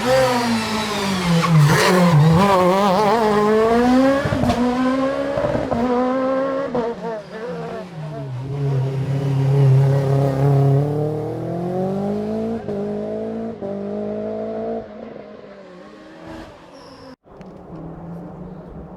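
Rally car engine revving hard as the car passes at speed, its pitch rising and dropping sharply through throttle lifts and gear changes, then fading away after about fifteen seconds.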